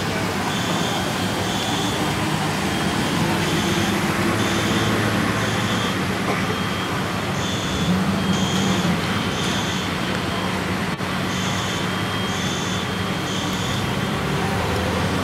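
A high-pitched electronic alarm beeping in sets of three, each set repeating every three to four seconds, over a steady rushing background with a low hum.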